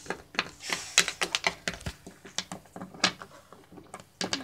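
Plastic Littlest Pet Shop figurines tapping and clacking on a wooden desktop as they are moved along by hand. The clicks come in a quick, irregular run, with a short lull before a last few near the end.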